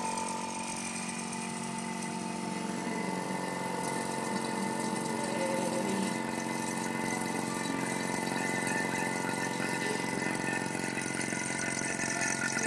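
Electric vacuum pump running steadily, a constant hum with a high whine, as it pumps the air out of a glass bell jar.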